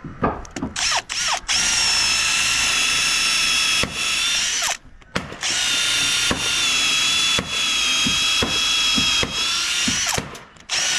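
Power drill with an 8 mm bit boring into timber framing for a screw bolt. A few short trigger blips, then a long steady high whine that stops briefly about halfway, runs on again and stops again near the end.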